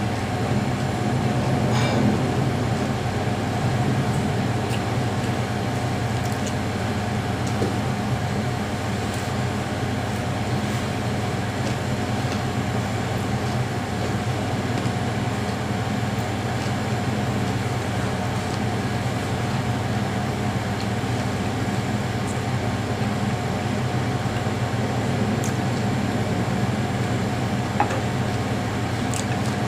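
Electric fan running with a steady hum, with a few soft clicks from eating.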